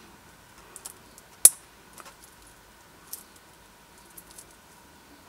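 Watch bracelet clasp being handled and snapped, with one sharp click about one and a half seconds in and a few lighter clicks and taps of the links after it.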